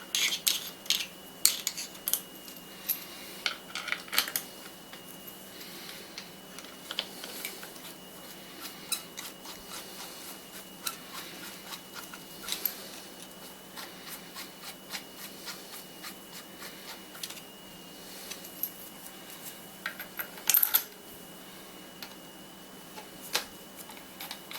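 Bolts, small metal parts and tools being handled during lathe reassembly: irregular light clicks and clinks, busiest in the first few seconds and again near the end, over a faint steady whine.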